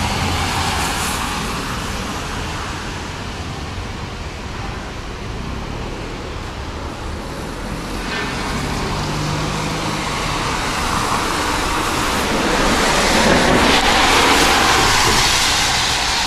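Road traffic on rain-wet pavement: cars passing with tyre hiss, one swelling up louder about three-quarters of the way through.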